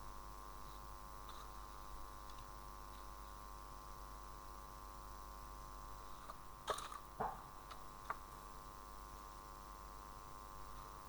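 Steady electrical hum, with a few short clicks a little past halfway.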